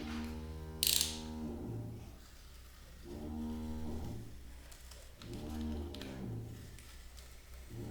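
Background music of sustained low instrumental notes in three phrases, with a brief, sharp noisy burst about a second in.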